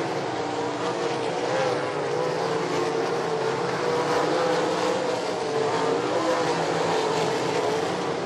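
Race car engines running at speed around the track, a steady loud tone whose pitch wavers slightly up and down.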